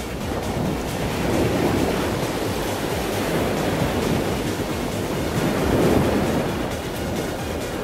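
Whitewater rapids rushing and churning right around the microphone at water level, a dense, steady roar that swells and eases slightly.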